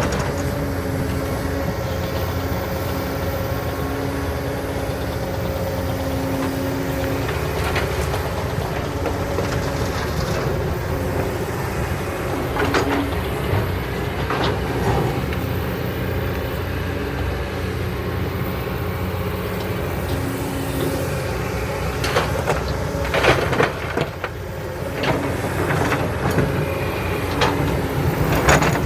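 Heavy diesel engines running steadily as a Kobelco SK200 excavator works while loading dump trucks with sand and rock, with a few sharp knocks and clatters scattered through.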